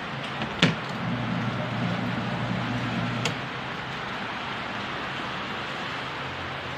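Mini washing machine running: a steady churning noise over a low motor hum, with a sharp click under a second in and another click about three seconds in, where the motor hum drops away.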